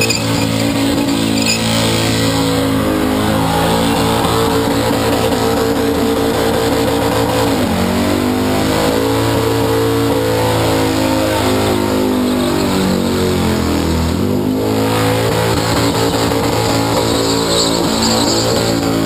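A burnout car's engine held at high revs as it spins its rear tyres on the pad; the revs drop sharply and climb back up twice, about eight and fourteen seconds in.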